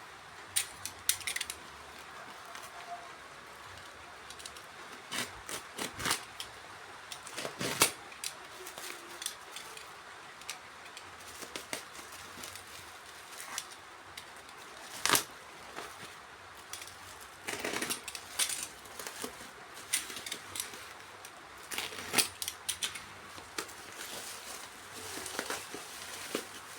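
Hands unpacking a boxed DVB-T2 set-top box: scattered clicks, taps and rustles of cardboard and plastic packaging, with a few sharper knocks.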